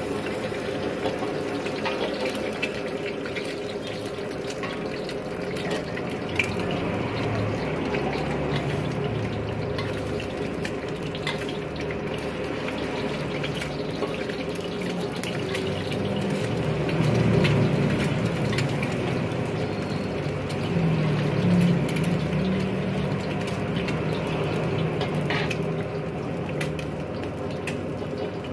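An egg frying in hot oil in a steel wok, with a steady sizzle throughout and occasional light scrapes and taps of the metal wok spatula against the pan.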